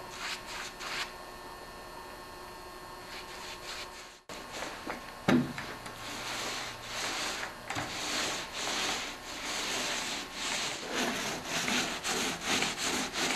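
A brush spreading latex paint on wood for a few strokes, then a paint roller rolling paint over a plywood shelf in repeated rasping passes. A single knock sounds about five seconds in.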